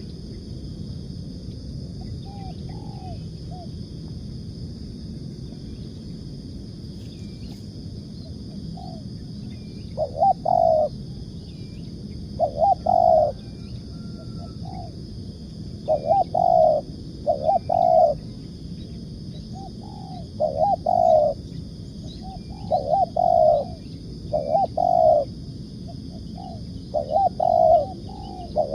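Spotted dove cooing: short phrases of a few low coos, soft at first, then loud and repeated every two to three seconds from about a third of the way in. A steady high hiss runs underneath.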